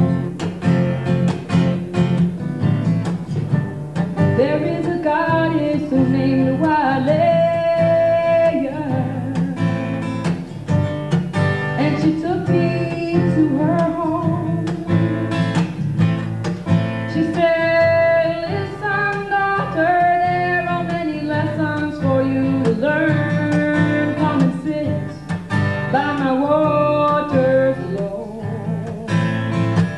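Live folk song: a woman singing over a strummed acoustic guitar. The guitar plays alone for the first few seconds, the voice comes in about four seconds in, and it drops out near the end while the strumming goes on.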